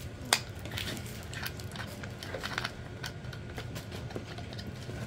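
Handling clicks and rattles of a desk-mounted phone holder arm being worked, with one sharp click about a third of a second in and scattered small clicks and rustling after it.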